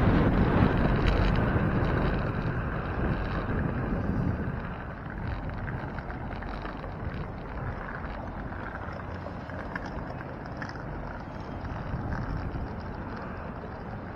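Wind buffeting the microphone of a bike-mounted camera while riding. It dies down about four and a half seconds in, leaving quieter steady street noise.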